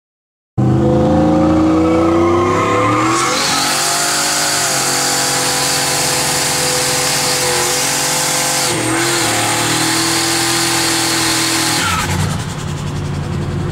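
600-plus wheel-horsepower turbocharged Chevrolet Silverado pickup doing a rolling burnout. The engine revs up about half a second in, then the rear tyres spin and squeal loudly for about nine seconds. Near the end the tyre noise drops away and the engine note settles lower.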